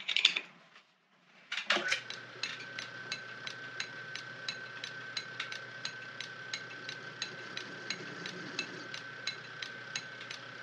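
1921 Dalton B4 metal lathe, driven by its motor and countershaft, comes on about two seconds in and runs steadily while a small chamfer is cut on a stainless bolt. It makes a steady whine with a regular tick about four times a second.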